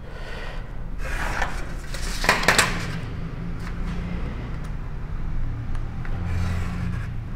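Craft knife cutting a kraft-cardboard pattern along a steel ruler: two scraping strokes about one and two and a half seconds in, then softer rubbing strokes.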